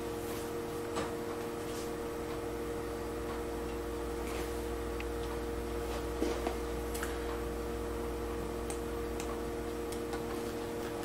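A steady electrical hum of several fixed tones over a low drone, with a few light, scattered clicks and ticks.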